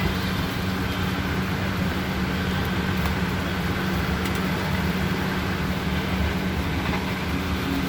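Steady street noise: a low traffic rumble under a constant hum, level throughout.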